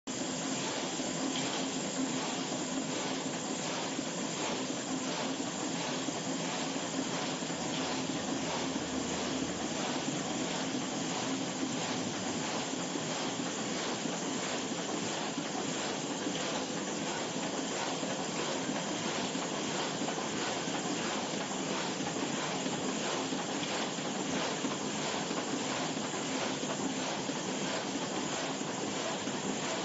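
Bobst 102 BMA hot foil stamping press running steadily at production speed, about two sheets a second. Its feed and platen mechanism give an even mechanical din with a faint regular beat.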